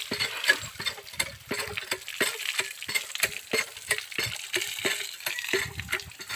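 Water from a hand-operated well pump, the handle being worked, splashing onto the ground and into a man's cupped hands as he washes his face: a constant run of sharp, irregular splashes and clicks, several a second.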